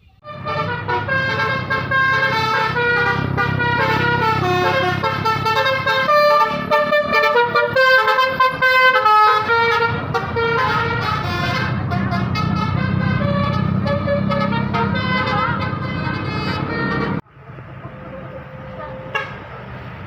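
Bus telolet 'basuri' musical air horn playing a quick tune of several horn tones at once over a low rumble, then cutting off suddenly about three seconds before the end. Quieter traffic noise follows.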